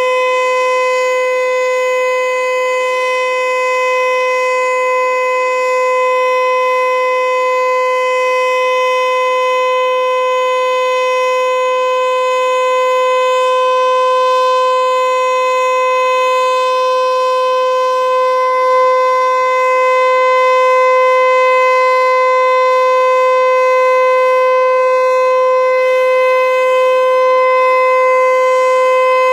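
Federal Signal Eclipse 8 electronic outdoor warning siren sounding a steady alert: one unwavering tone held throughout, with an airy hiss beneath it.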